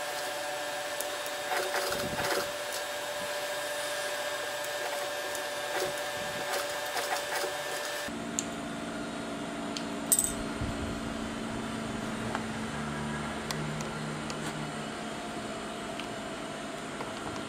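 Steady hum of an industrial sewing machine's motor running between stitching runs, with light rustling and knocks as the denim jeans are handled. The hum changes about eight seconds in.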